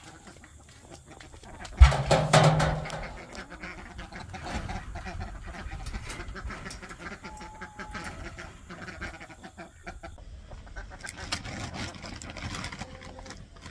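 A loud hollow thump about two seconds in from an empty galvanized steel feed can, with a low ring lasting about a second. Poultry call and there is scuffling handling noise through the rest.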